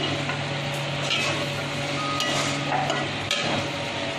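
A metal spoon stirring and scraping thick dal and masala in a metal kadai, with a few scrapes about a second apart, over the sizzle of the mixture frying down. A steady low hum runs underneath.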